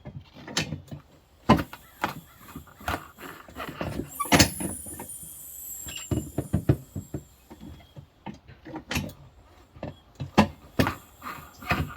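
Manual tire changer's bead breaker being worked against a tire: irregular metal knocks and clanks, with a brief high squeak about four seconds in.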